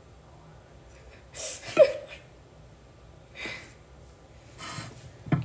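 A woman breathing softly, with a brief vocal sound a little under two seconds in and a few other short, quiet breaths.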